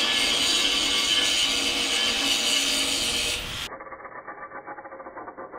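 Angle grinder grinding the edge of a 4 mm steel plate, cutting a clearance so the plate can sit down: a steady high whine with grinding hiss. A little over three and a half seconds in it turns much quieter and duller.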